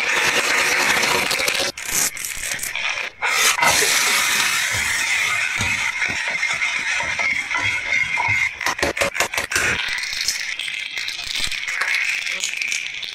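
Close-up food-preparation sounds in quick succession: a knife slicing through a tomato on a wooden chopping board, chopped onion and tomato cooking in a frying pan, then a boiled egg's shell cracking and being peeled away. The sound is a continuous hiss with many small clicks, including a quick run of clicks about nine seconds in.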